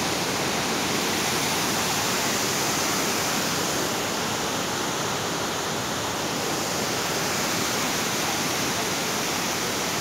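Steady rushing of a tall waterfall and the cascades below it, an even roar of falling water with no distinct events.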